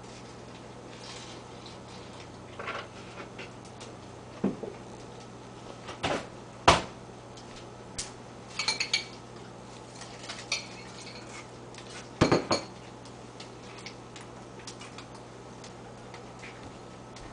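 Metal spoon clinking against a ceramic bowl, and items knocked down on a countertop: a dozen or so scattered short clinks and knocks, the loudest about seven and twelve seconds in.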